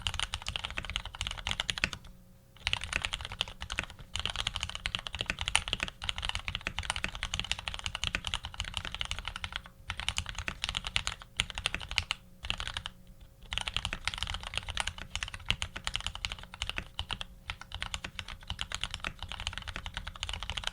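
Fast, continuous typing on a custom Ar87 tenkeyless mechanical keyboard fitted with lubed Retooled Black linear switches, an aluminium plate and PBT keycaps. The key strikes come as a dense run of clacks, broken by a few short pauses: about two seconds in, near ten seconds and near thirteen seconds.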